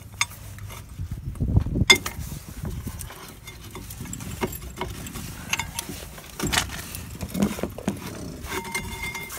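Irregular metallic clinks and knocks of hand tools on metal as the three top-mount bolts of the front strut are worked loose, with a brief steady whine near the end.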